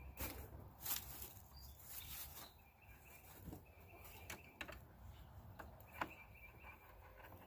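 Faint scattered clicks and taps of small parts and tools being handled on the ATV, with short bird chirps now and then.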